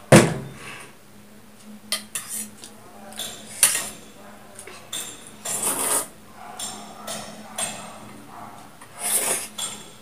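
Metal spoon or fork clinking and scraping in a steel bowl while eating noodles, with a sharp knock right at the start. Noisy slurps come twice, about halfway through and near the end.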